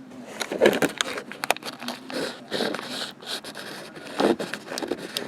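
Crinkling, crackling and scraping of a foil-wrapped activator towelette packet being torn open and handled, in irregular short bursts.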